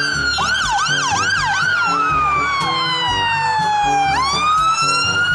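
Fire engine siren sounding on an emergency run. A slow wail falls steadily in pitch for about four seconds, then sweeps quickly back up, and a faster yelping siren overlaps it for the first two seconds.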